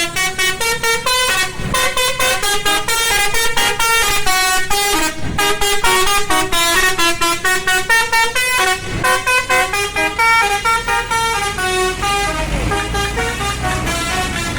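Bus's Basuri multi-tone telolet horn playing a tune of rapid short notes, with a couple of brief pauses.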